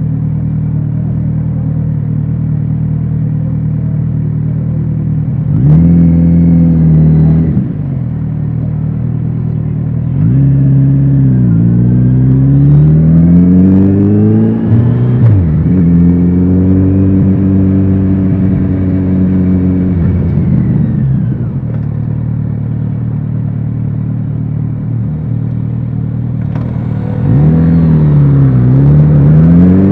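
Kawasaki Z900RS inline-four engine with an aftermarket exhaust, ridden in traffic. It runs at a low steady note for the first few seconds, then pulls away, its pitch rising and dipping at each gear change. It holds a steady cruise, drops back to a low steady note, and pulls away again through a shift near the end.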